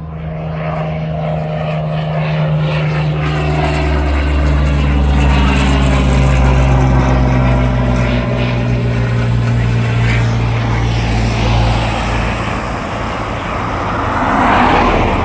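A propeller-driven aircraft flying past with a steady engine drone. The drone grows to its loudest about six or seven seconds in, and its pitch drops a little as the plane goes by.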